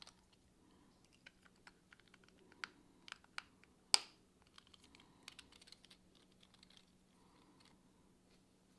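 3D-printed plastic model parts being handled and fitted together: a scatter of small clicks and taps, with one sharp snap about four seconds in as two sections are pressed into place.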